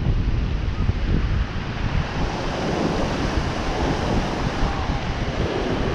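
Ocean surf breaking and washing up the sand, with wind rumbling on the microphone.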